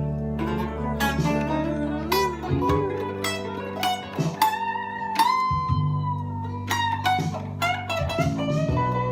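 Ibanez AGR-73T hollow-body electric guitar played clean in a bluesy improvised jam: single plucked notes, several of them bent up and down in pitch, ringing over held low notes.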